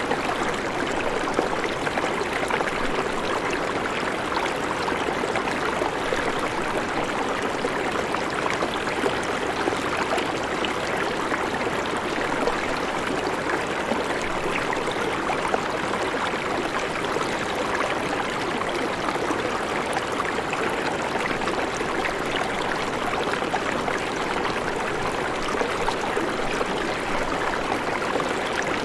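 River water flowing, a steady even rush that does not change.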